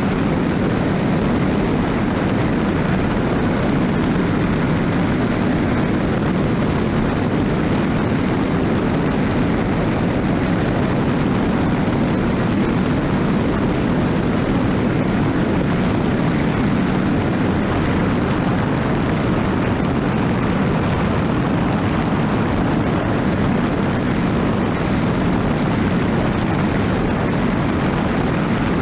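Racing speedboat's engine running loud and steady at high power, with no change in pitch or level.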